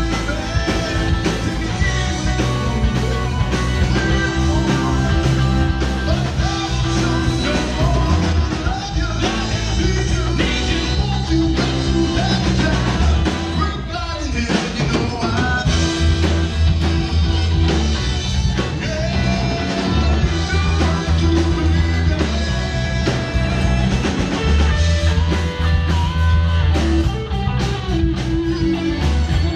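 Live rock band playing through a PA system: electric guitars, bass and drums with a steady beat, and a singer.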